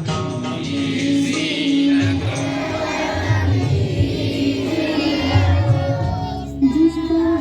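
Group of voices singing together over instrumental backing music with a steady low beat.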